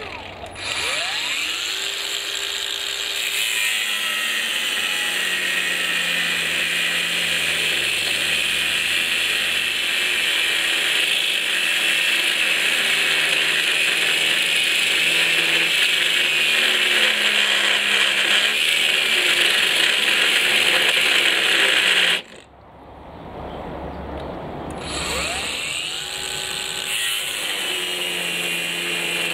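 Cordless 18 V brushless angle grinder with a thin cut-off wheel spinning up with a rising whine and cutting through thick steel bar, a loud, steady, hissing grind. It stops suddenly about three quarters of the way through, then spins up again with a rising whine and runs on.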